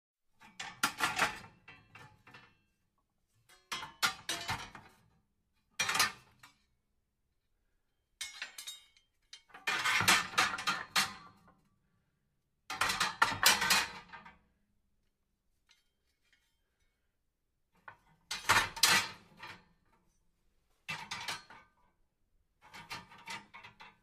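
Metal fireplace tools being handled, clinking and clattering against each other in about nine separate bursts with short silent pauses between.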